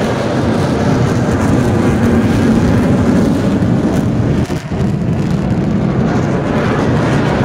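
Loud, steady rumble of heavy engines, with a brief dip about four and a half seconds in.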